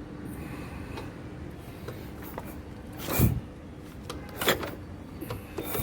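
Several sharp knocks, the loudest a heavy thump about three seconds in, over a faint steady hum.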